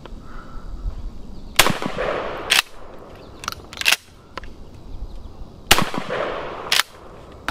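Two shots from a Springfield 67F 20-gauge pump-action shotgun about four seconds apart, each ringing out briefly, and each followed about a second later by a sharp clack of the pump being worked.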